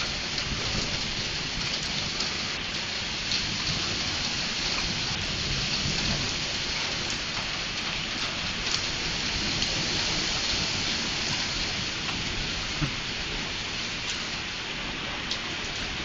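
Hail and heavy rain pelting down: a steady dense hiss with scattered sharp cracks of individual hailstones striking.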